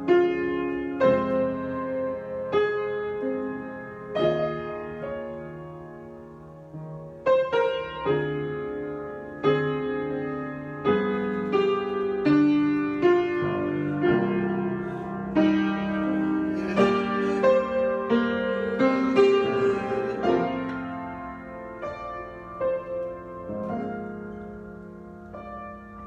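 Improvised piano playing: chords and melody notes struck and left to ring, growing busier and louder through the middle, then thinning out near the end.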